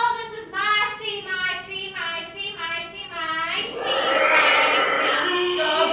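A person singing in a high-pitched voice, a run of short notes that each rise and fall; from about four seconds in the voice grows louder and more strained, with a breathy noise under it.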